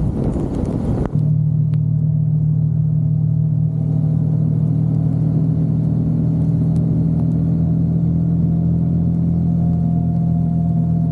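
Vehicle engine running at a steady speed, a constant low drone. It starts abruptly about a second in, replacing a rush of wind noise.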